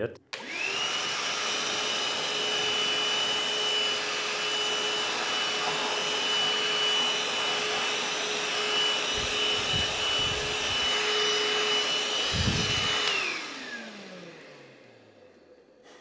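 Einhell TE-VC 18 cordless handheld vacuum switching on and running steadily, a high whine over a rushing hiss, as it sucks up a mix of sawdust and fine dust from a smooth table. A few dull low thumps come late in the run. Then it switches off, and the whine falls as the motor winds down.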